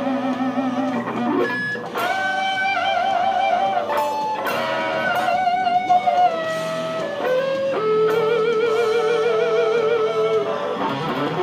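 Electric guitar playing a lead solo: long held notes with wide vibrato, joined by short quicker notes and bends.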